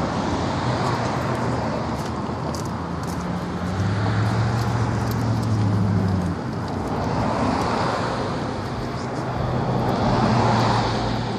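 Road traffic: cars driving past, their noise swelling and fading about three times over a steady low hum.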